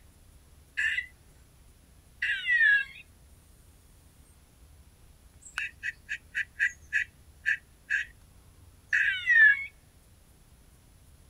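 Animal calls in the woods: short, harsh pitched calls, one early, then a quick run of about eight, with two longer calls falling in pitch about two and nine seconds in.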